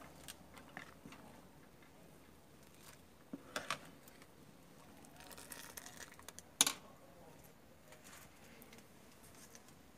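A long metal spoon stirring a steel pot of boiling liquid on a wood fire, knocking lightly against the pot a few times, with one sharper clink about two thirds of the way in.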